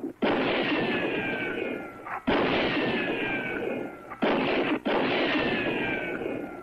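Pistol shots about two seconds apart, each followed by a long falling ricochet whine, with a shorter crack just before the last one.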